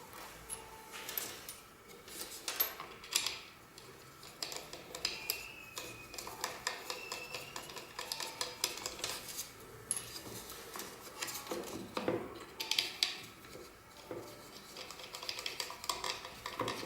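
Scattered light clicks, clinks and scrapes of metal and plastic parts being handled on a Festool Domino joiner as its original fence is raised and a homemade fence is fitted, with a faint brief squeak of sliding parts about five seconds in.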